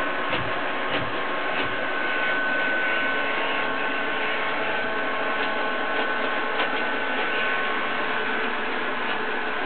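Robot vacuum cleaner running steadily: its suction fan and brush motors make a continuous mechanical whirr with a high whine, plus a few low knocks in the first couple of seconds.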